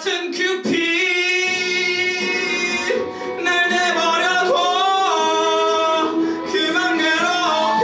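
A man singing a ballad into a microphone over musical accompaniment, holding long notes that bend and slide in pitch.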